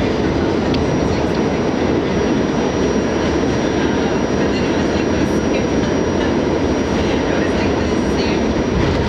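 Steady running noise heard from inside an R68A New York City subway car moving at speed through a tunnel: wheels on rail and car body noise, with a thin steady high tone over it.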